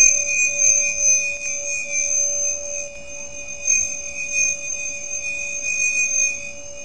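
Steady electronic whine made of several fixed high-pitched tones held together without a break.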